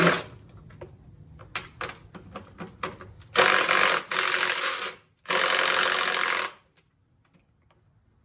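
A power tool run in two bursts, the first about 1.5 seconds long and the second slightly shorter, with a short gap between them. Light clicks and knocks of tools being handled come before the bursts.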